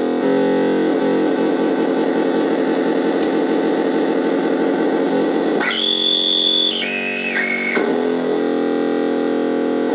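Homemade square-wave oscillator synthesizer buzzing through its own small speaker, a dense warbling drone of several low tones. About six seconds in it jumps to a high squeal held for about a second, then steps down through two lower pitches before dropping back to the low buzz.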